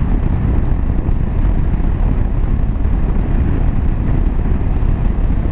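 KTM 790 Adventure motorcycle cruising at about 60 mph: a steady, low rumble of wind and engine noise with no change in pace.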